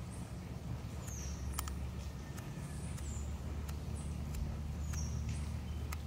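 Outdoor background: a steady low rumble with short, high, falling chirps about every two seconds and scattered faint clicks.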